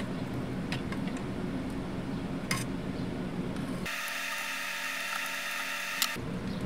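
A hand screwdriver working on an opened calculator, with a few faint clicks of metal tool on metal over a steady background hum. About four seconds in, a high, hissing whine with several steady tones takes over for about two seconds and then cuts off suddenly.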